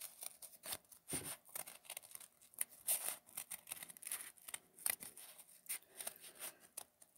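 Scissors cutting through several layers of accordion-folded paper: a faint run of short, irregular snips as the blades work around a curved outline.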